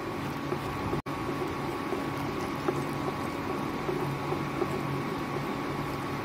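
Egg bhurji sizzling on a hot tava while a spatula scrapes and pushes it to the sides, over a faint steady hum. The sound cuts out for an instant about a second in.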